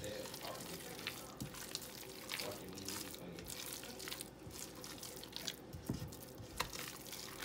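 Spatula stirring a thick, wet chicken-and-ricotta mixture in a pan: uneven wet scraping with scattered small clicks and taps against the pan.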